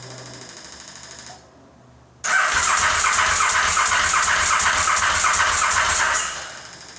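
KTM 950 SM's V-twin being turned over on the electric starter in one burst of about four seconds, starting about two seconds in, a fast, even chugging that never catches. It cranks without firing despite starting fluid in the carburettor inlets, which the owner takes as a sign the problem may be ignition after all.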